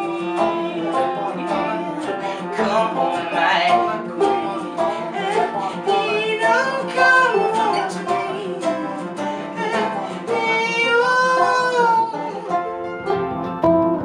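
Acoustic string band playing a folk song: banjo, acoustic guitar, mandolin and upright bass, with a sung lead and a second voice singing along.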